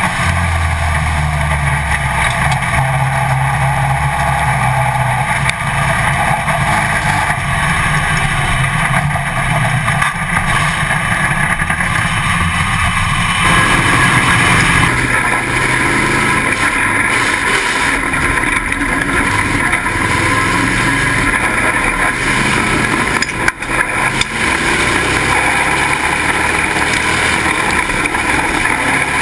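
Pro Stock dirt-track stock car's engine running on track, loud and steady, recorded by a camera mounted on the car. About halfway through, the sound changes as the recording switches from the front-mounted camera to the rear-mounted one.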